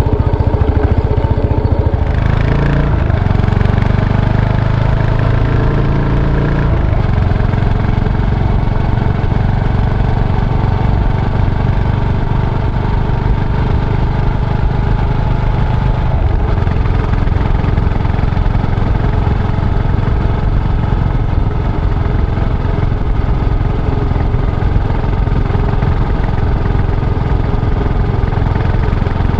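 Yamaha SR400's air-cooled single-cylinder engine under way, rising in pitch as it accelerates for a few seconds early on, then dropping back and running at a steady speed.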